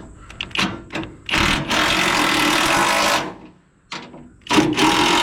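A few light clicks, then an impact wrench hammering in two bursts of about two seconds each, the second starting near the end. It is being run to pull a bent plate back into shape.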